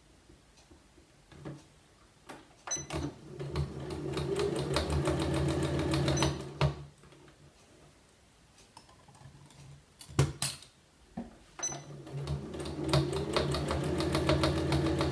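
Janome Memory Craft 9900 sewing machine stitching in two runs of about four seconds each, with rapid, even needle strokes and a pause of several seconds between them. A sharp click comes before each run.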